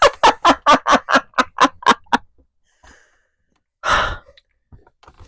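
A person laughing in a quick run of 'ha' pulses, about four or five a second, that stops after about two seconds. Near the end comes one heavy breath out, like a sigh.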